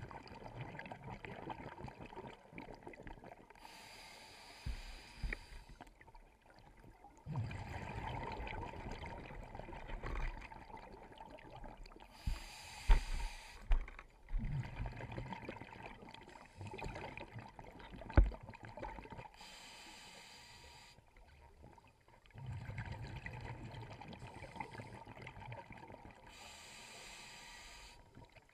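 Scuba regulator breathing heard underwater: four breaths, each a short hiss on the inhale followed by a longer rumble of exhaled bubbles. A few sharp knocks come in the middle.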